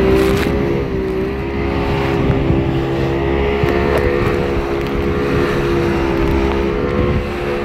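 Motorboat engine running steadily at cruising speed, holding an even pitch, over the rush and splash of the hull's bow wave and spray alongside.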